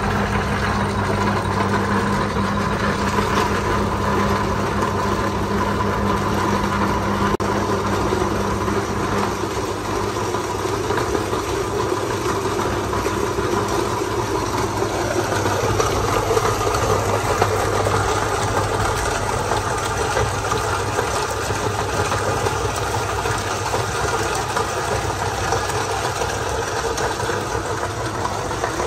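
Electric motor driving a size-32 cast-iron meat grinder through two belts, grinding fish heads and bones: a steady motor hum under the rough crunching of the auger forcing bone through the plate. The grinding grows rougher from about ten seconds in as more fish is fed in.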